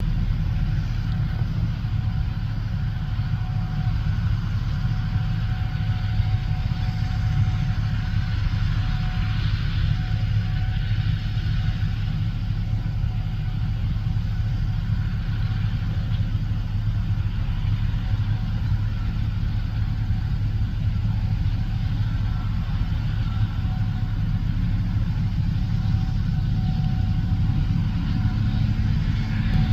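Gleaner S77 combine running steadily while harvesting corn: a constant deep drone with a faint steady whine above it.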